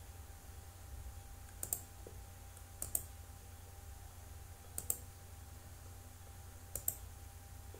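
Computer clicks as terminal tabs are switched: four quick double clicks, each a press and release, one to two seconds apart, over a faint steady low hum.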